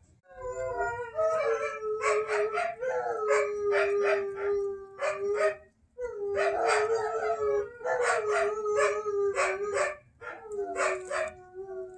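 Two dogs howling together in a duet: a long held howl with short sharp barks and yips over it. It goes in three bouts, breaking off briefly about six and ten seconds in.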